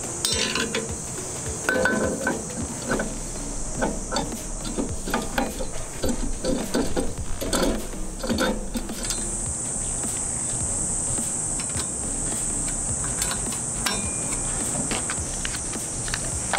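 Stainless steel parts of a speed mill being handled and fitted by hand, making scattered metallic knocks and clinks, mostly in the first half. Under them runs a steady high drone of insects, which grows louder about halfway through.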